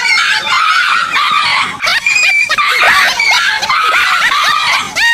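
Dog crying out in a rapid string of short, high-pitched yelps and whines that rise and fall.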